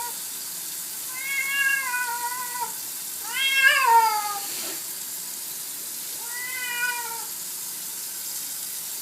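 Domestic cat meowing in protest while being bathed: three long, drawn-out meows, the middle one the loudest and sliding down in pitch at its end.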